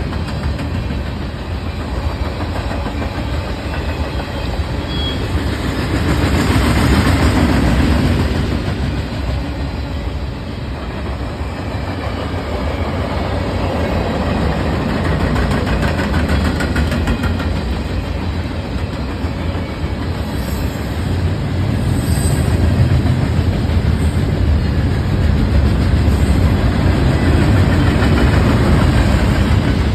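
CSX freight train rolling past, a continuous rumble with wheels clicking over the rails; it swells about a quarter of the way in and again toward the end.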